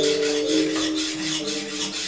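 A broad-bladed kitchen knife scraped back and forth on a whetstone in quick, rhythmic sharpening strokes, several a second. Sustained background music notes sound underneath.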